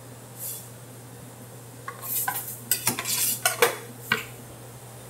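Metal Detroit-style pizza pans clanking and scraping as baked square pizzas are taken out of them. A quiet start with one faint swish, then about two seconds in a quick run of sharp clanks and scrapes, over a steady low hum.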